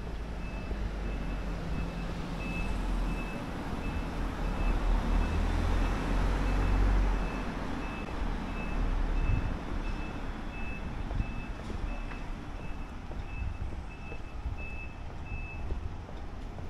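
An electronic warning beeper sounds a single high beep over and over, about one and a half times a second, and stops near the end. Under it runs the rumble of road traffic, with a heavy vehicle passing close by a few seconds in.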